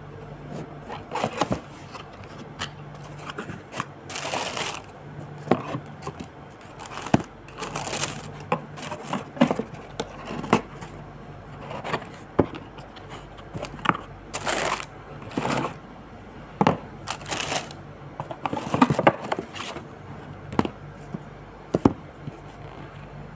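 Cardboard shoebox and its paper wrapping being handled: short bursts of rustling and crinkling, with scattered light knocks and taps as the box is opened and the sandals are taken out and set down.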